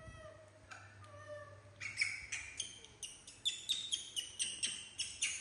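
Young macaques calling: a few soft, mid-pitched coos, then from about two seconds in a quick run of short, high-pitched squeaks, about three or four a second.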